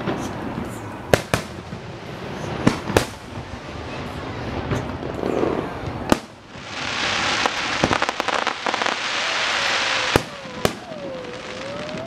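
Aerial fireworks shells bursting with sharp booms every second or two. About halfway through comes several seconds of dense crackling, then more single booms.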